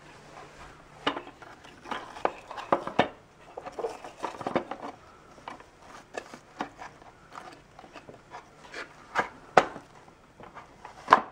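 Irregular plastic clicks, taps and rubbing as the brush roll and its end caps are pressed into the base of a Bissell compact upright vacuum, with a few sharper knocks near the end.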